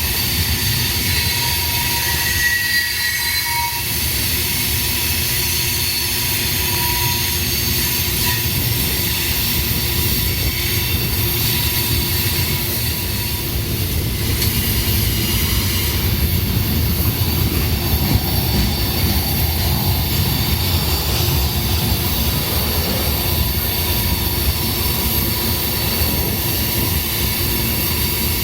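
Union Pacific freight train rolling steadily past, its cars' wheels rumbling on the rails with thin high-pitched wheel squeal over it.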